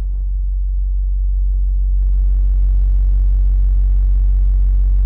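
Sealed subwoofer box with an NVX VCW122 12-inch subwoofer and Earthquake Slaps M-12 passive radiators playing a steady 47 Hz test tone, growing steadily louder as the volume is turned up. This is a burp test at the box's peak-output frequency. About two seconds in, a buzzy edge joins the tone.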